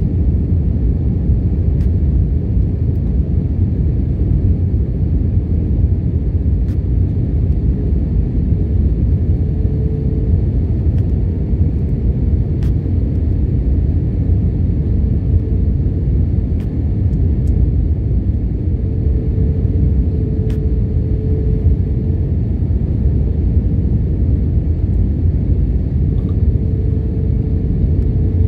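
Steady low rumble inside the cabin of an Airbus A320-family jet airliner in flight, from its engines and airflow, with a faint hum that comes and goes.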